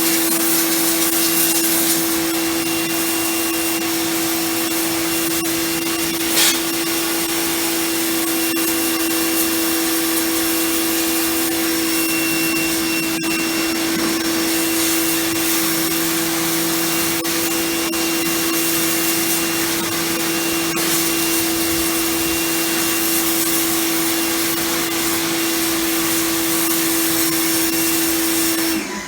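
Titan TTB66PRW electric pressure washer running steadily, its motor and pump giving a constant hum under the hiss of the water jet spraying a floor. The sound dips sharply right at the end.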